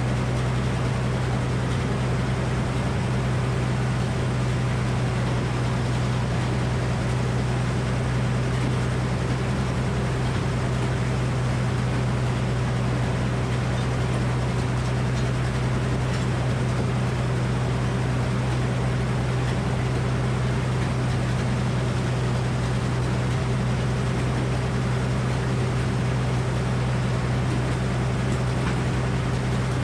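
Gasoline engine powering a Frick circular sawmill, running at a steady speed with an even, unchanging hum.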